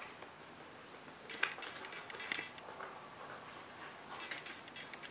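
A small cardboard box being handled and its end flap worked open by hand: a few light scrapes and taps of cardboard, about a second and a half in, again a second later, and a cluster near the end.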